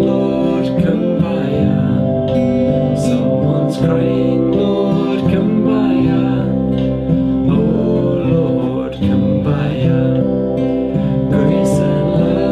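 A hymn played with acoustic guitar, steady and continuous.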